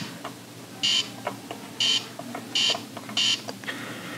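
Ohio Art Etch A Sketch Animator beeping four times, one short electronic beep for each step of the cursor as a knob is turned, with faint clicks between the beeps.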